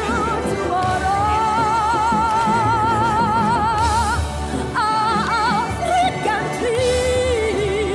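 Pop-style song: a singer holds long notes with a wide vibrato over the backing music, with a new phrase starting about halfway through and a lower held note near the end.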